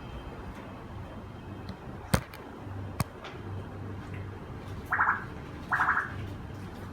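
An African grey parrot gives two short calls, under a second apart, near the end. Earlier come two sharp clicks about a second apart, the first of them the loudest sound.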